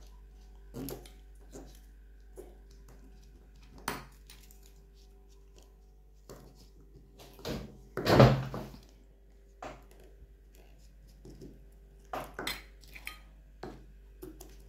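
Handling noises from playing with slime and its small plastic tub: scattered light clicks and taps, with one louder noise about eight seconds in.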